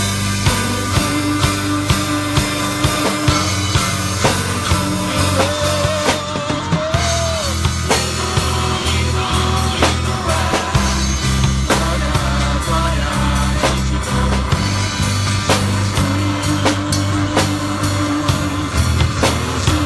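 Instrumental passage of a worship song played by a band: a drum kit keeps a steady beat under a moving bass line, with a melodic line gliding above.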